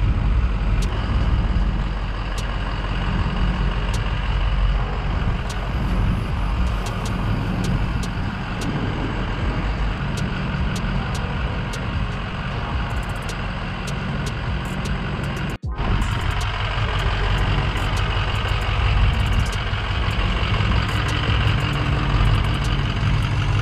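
A motor vehicle engine running with a steady low rumble, cutting out for an instant about two-thirds through.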